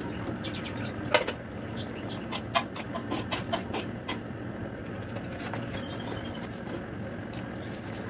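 Metal lid and utensils knocking on a wok: one sharp clank about a second in, then a run of lighter clinks and taps while the fish stew is stirred, over a steady low background noise.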